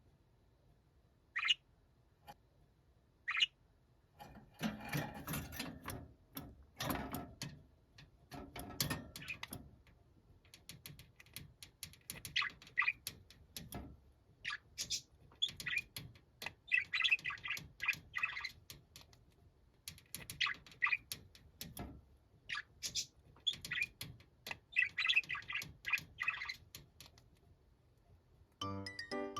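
Budgerigar chirping and chattering: two single sharp calls, then repeated bursts of rapid short chirps separated by brief pauses.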